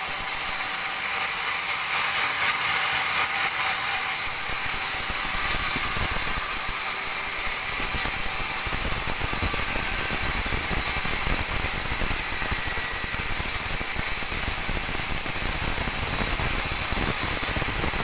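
Band sawmill blade running through a teak log, a steady high sawing hiss. A fast mechanical rattle builds up underneath from about halfway through.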